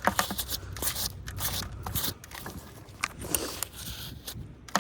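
Small pieces of metal scrap scraping and clicking as they are handled and pulled off a strong fishing magnet, in a run of short, uneven clicks and scrapes.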